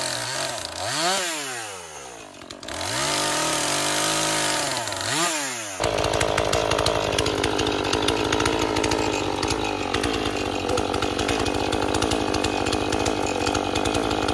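Gas chainsaw cutting into a maple trunk, its revs rising and falling twice. About six seconds in the sound changes abruptly to the saw running steadily at a lower speed, held off the wood.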